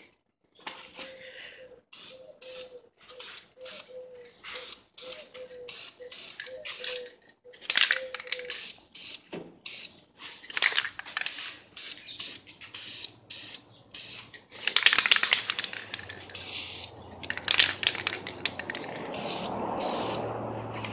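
Rattle-can clear coat hissing onto a plastic headlight lens in short spurts, roughly two a second, then in longer sweeping sprays in the second half. A low rumbling noise builds underneath near the end.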